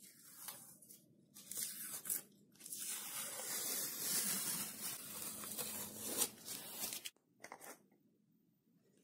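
Adhesive tape being peeled and pulled along a lathe carriage: a few short rips, then one long continuous peel that stops abruptly about seven seconds in.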